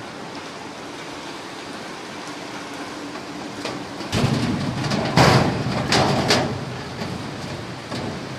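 A white sheet-metal shelf panel is slid into a steel locker compartment: a loud scraping clatter starts about halfway through, with three sharp metal knocks as it is pushed into place. A steady hiss runs underneath before it.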